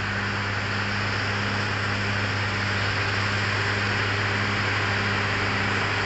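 Caterpillar D6R XL bulldozer's diesel engine running steadily with a low hum as the dozer pushes a mound of loose soil.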